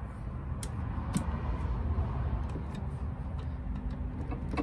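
A few scattered sharp clicks and taps of hand tools on metal in a car's engine bay, as someone works at a hard-to-reach nut by the brake master cylinder, over a low steady hum.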